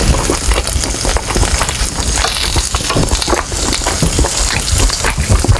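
Pork butt slices sizzling and crackling on a hot electric grill griddle, with kitchen scissors snipping through the meat.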